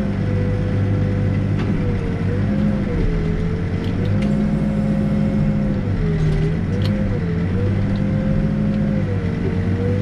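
New Holland B95 backhoe loader's diesel engine running steadily, heard from inside the cab while it digs. The engine's pitch sags and recovers several times as the boom and bucket load it.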